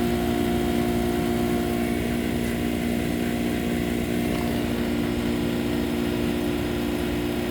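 Steady motor hum of running refrigeration equipment, holding a few fixed tones without change.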